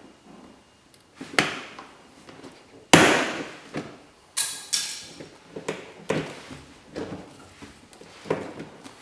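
Tesla Model 3 rear door trim panel being pried and pulled off the door: a series of sharp plastic clicks and knocks as the retaining clips let go and the panel is handled, the loudest about three seconds in.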